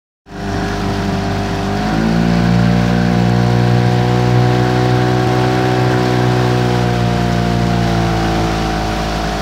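Outboard motor of a small boat running alongside, picking up speed about two seconds in and then holding a steady drone.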